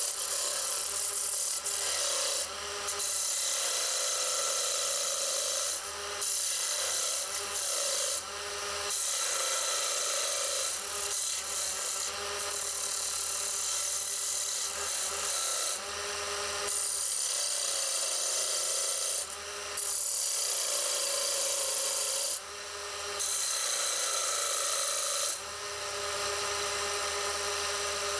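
A narrow turning chisel cuts grooves into a spindle of pale wood spinning on a Draper variable-speed mini wood lathe. The cut makes a continuous scraping sound, broken by about eight short pauses as the tool lifts off the wood, over a low steady hum from the lathe.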